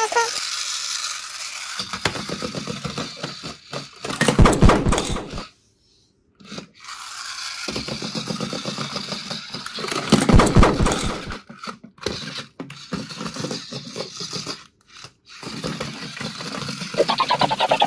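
Battery-powered toy stunt car with many plastic wheels running across a wooden tabletop: its small motor whirring and its wheels clattering, with two louder bursts of clattering as it bumps into other toys.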